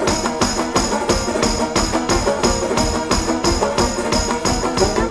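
Background folk music without vocals: a brisk, steady beat of tambourine-like percussion over plucked string chords.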